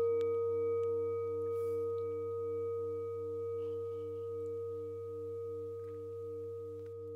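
Singing bowls ringing on from a strike just before, a steady tone with higher overtones slowly fading. Under it a lower bowl tone pulses about three times a second.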